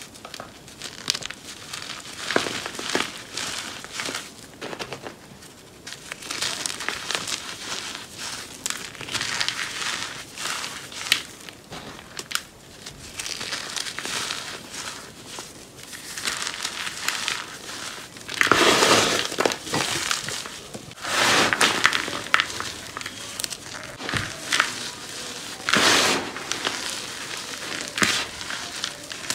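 Cornstarch chunks crunching and crumbling as they are squeezed and broken apart by hand into powder, in irregular bursts, with the loudest crunches in the second half.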